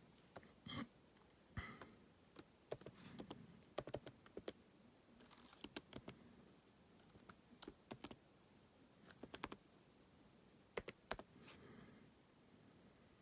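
Typing on a MacBook Pro's low-travel butterfly keyboard: soft, sparse key clicks in short irregular runs with pauses between them.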